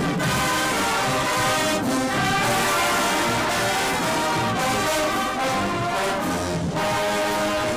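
Marching band brass section playing loudly in full, with held chords from trumpets, trombones and sousaphones.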